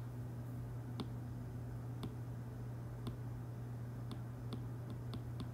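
Quiet room tone: faint sharp ticks about once a second over a steady low hum.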